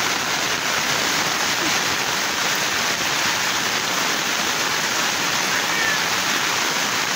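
Very heavy rain pouring steadily onto flooded ground, a dense, even hiss.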